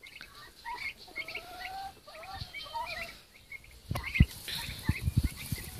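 Small birds chirping repeatedly, with a few longer wavering calls early on. From about four seconds in, several dull low thumps are the loudest sounds.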